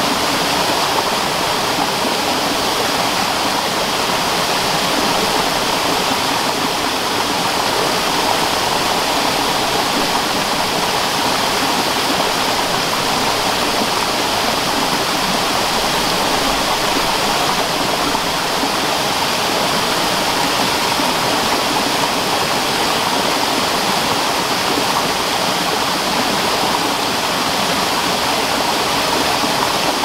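Waterfall cascading over boulders into a rocky stream: a steady, loud rush of falling and splashing water.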